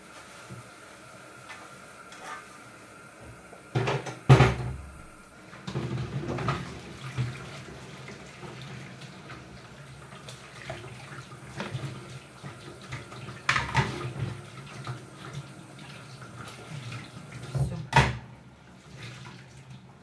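Kitchen tap running into a steel sink while a frying pan is washed, with a few sharp clunks of the pan against the sink, the loudest about four seconds in and another near the end.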